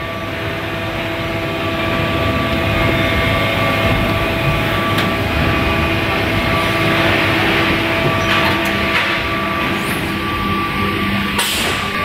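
Steady factory machinery noise, a dense hum with several steady tones, and a short burst of hiss near the end.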